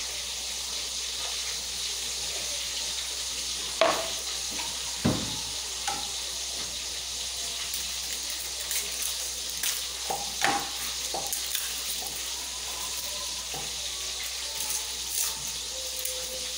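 A steady hiss with a few sharp knocks, the loudest about four and five seconds in, and lighter clicks and clinks later on.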